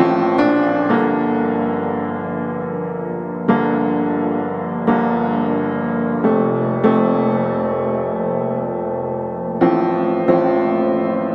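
Background music: slow piano chords, each struck and left to ring out, a new one every second or two.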